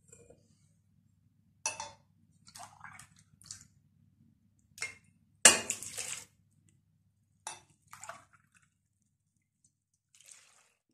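Wire whisk clinking and scraping in a stainless steel pot of flour, starch, sugar and egg, and milk poured into the pot with a wet splash. Short separate sounds with pauses between; a sharp knock about halfway through is the loudest.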